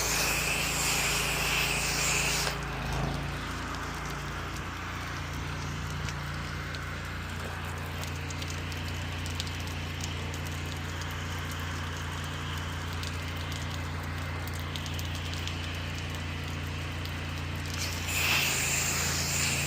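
Pressure washer engine running steadily, with the spray wand hissing for about two seconds at the start and again near the end.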